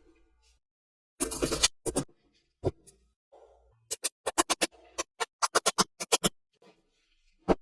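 Small neodymium magnet balls snapping together in sharp clicks: a brief rattle, a few single clicks, then a quick run of clicks as balls are set in place one after another.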